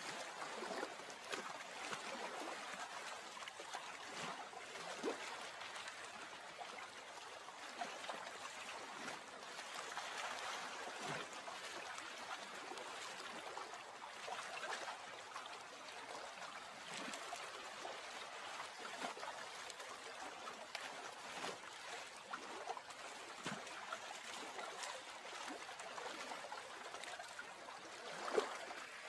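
Gently moving water lapping and trickling without a break, with small gurgling plops every few seconds and a louder plop near the end.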